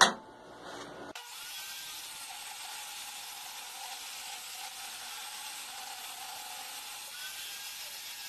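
Skil 3410 table saw running with a steady, even hiss that starts abruptly about a second in, while a thick oak block is fed along the rip fence for a shallow resaw pass.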